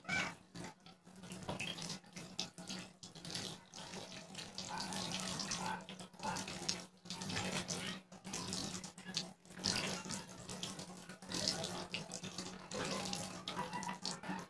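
Water running from a hose-fed plastic tap into a basin, with uneven splashing as hands scoop it up to rinse a face.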